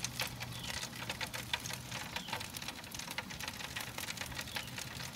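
Cornish hens on a charcoal grill sizzling, with juices and fat crackling in a dense, irregular patter of fine pops.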